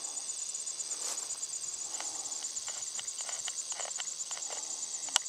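Steady, high-pitched insect chorus, trilling in rapid pulses. A scatter of faint clicks falls in the middle, and one sharp click comes near the end.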